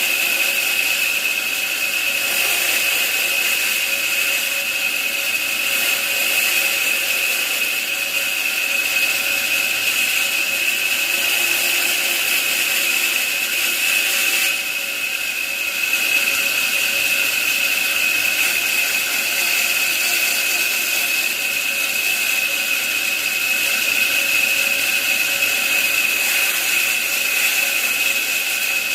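Power tool running steadily with a high-pitched whine over a hiss, easing off briefly about halfway through before running on.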